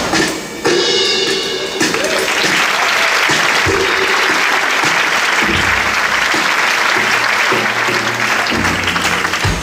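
Audience applauding, the clapping swelling in about two seconds in and dying away near the end, over a live drum kit playing.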